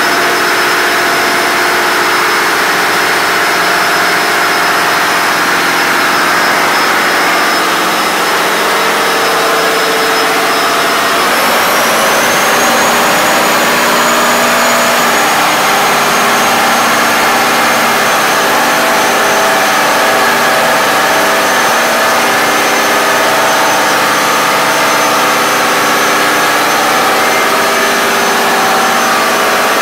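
Volvo Penta D13 marine diesel engines, 13-litre inline sixes, running steadily, loud and close inside the engine room. A high whine sits over the engine noise and rises in pitch about eleven seconds in, as the engine tones shift.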